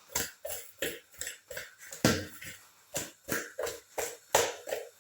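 Repeated sharp knocks of a kitchen utensil against a pot or plate, about three a second, each with a brief ringing note.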